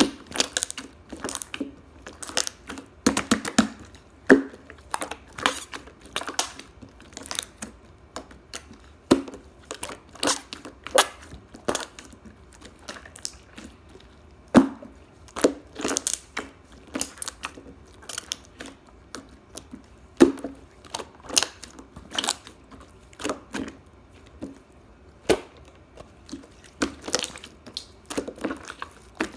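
Close, dry crunching and crackling: irregular sharp clicks, a few a second, in clusters with brief pauses.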